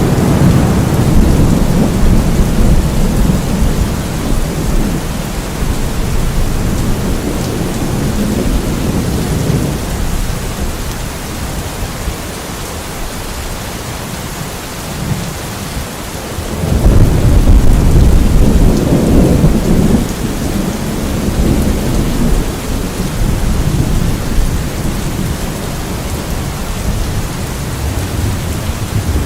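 Steady rain with rolling thunder: a long low rumble over the first third, then a louder roll that swells in a little past halfway and slowly fades under the rain.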